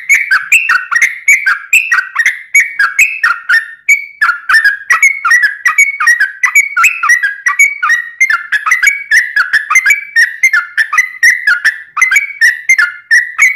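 Sooty-headed bulbul (trucuk) singing a long, unbroken run of rapid, liquid whistled notes, several a second, with no pauses.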